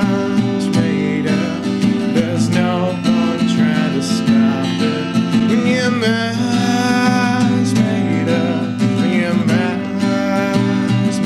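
Steel-string Crafter acoustic guitar strummed and picked in a song, with a man singing along over it.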